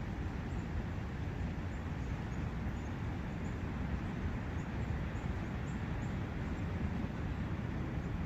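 Brook water running in a steady, low rush, with faint, high, short bird chirps repeating through it.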